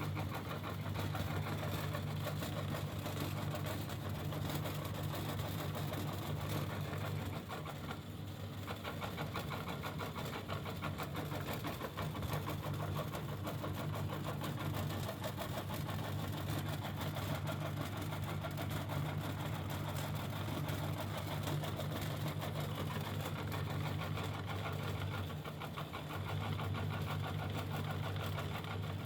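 Electric meat grinder running steadily while its auger grinds bar soap, a constant motor hum that eases briefly twice.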